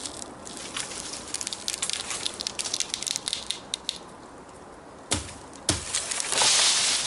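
Freshly felled small tree coming down, its twigs crackling and rustling through the leaves and undergrowth, then two knocks about five seconds in and a louder rustle of dry leaves near the end.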